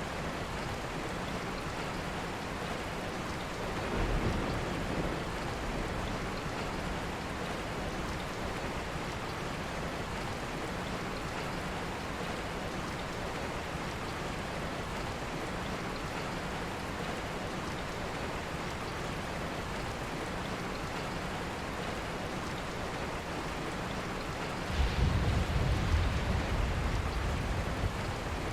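Steady rain falling, an even hiss. A brief low rumble comes about four seconds in, and a louder, longer low rumble near the end.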